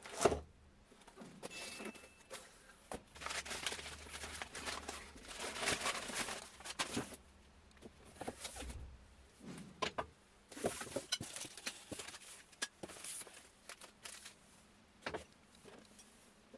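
Brown kraft packing paper rustled and crumpled as hands dig through it in a cardboard box. About ten seconds in, this gives way to a run of sharp clicks and clinks as the metal button-jaw plates are handled and set down.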